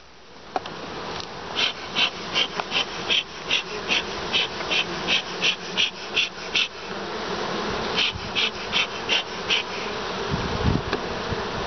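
Honey bees buzzing over the open frames of a long hive, the hum growing louder, while a bee smoker's bellows is pumped in short hissing puffs, about two or three a second, in two runs with a short pause between them.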